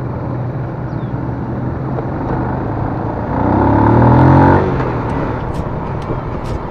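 Motorcycle engine running steadily under way, heard from the rider's position with road and wind noise. About three and a half seconds in, a louder engine swells and falls away over about a second as a truck passes close alongside.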